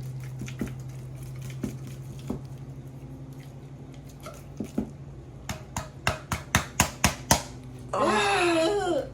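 Kitchenware knocking: scattered clicks, then a quick run of about eight sharp knocks, a spoon or can rapped against a pot as the refried beans are worked out. A steady low hum runs through the first few seconds, and a short wavering voice-like sound comes near the end.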